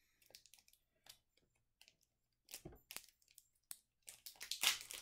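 Board-game card decks and their plastic wrapping being handled: scattered soft clicks and rustles, then a louder crinkle of plastic near the end.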